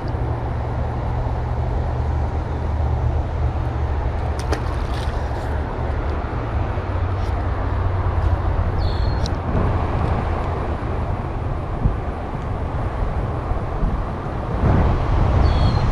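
Steady highway traffic noise with a low rumble underneath, likely wind buffeting the microphone, and a few faint clicks and short high chirps.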